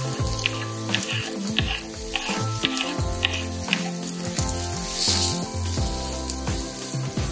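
Chopped leek and onion sizzling in oil in a frying pan, with a wooden spatula scraping and tapping as the vegetables are pushed off a wooden board and stirred. The sizzle swells briefly about five seconds in. Soft background music plays along.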